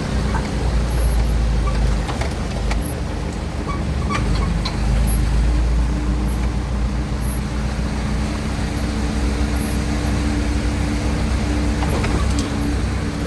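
A car driving on a potholed road, heard from inside the cabin: a steady low rumble of engine and tyres, with a few light knocks and rattles.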